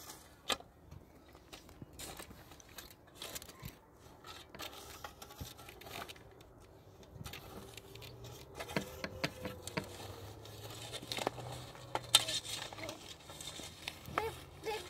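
Scattered light clicks and knocks with some rustling, over a faint steady low hum. A sharp click about twelve seconds in is the loudest.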